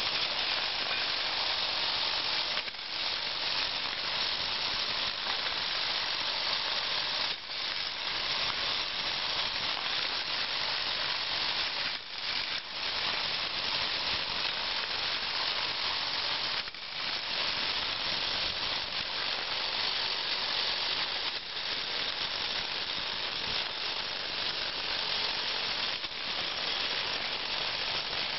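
Meccano ball-roller model running: its motor and gearing drive the spinning arms with a steady, dense metallic whirr and rattle. The noise dips briefly a handful of times.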